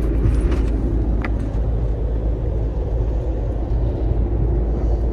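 Road and engine noise inside a vehicle driving at motorway speed: a steady low rumble of tyres and drivetrain, with a few faint ticks.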